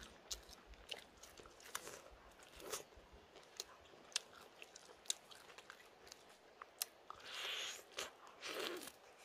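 A person eating: chewing and biting, with scattered sharp clicks and two longer, louder rushes of noise near the end.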